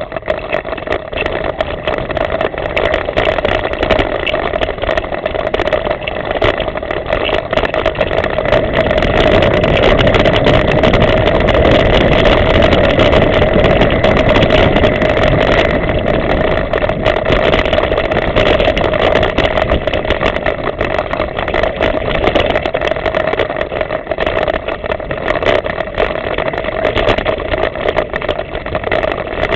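Ride noise from a camera mounted on a mountain bike rolling along a dirt forest trail: a continuous rushing rumble with many small rattling clicks from the bumps of the ride. It grows louder for several seconds about a third of the way in.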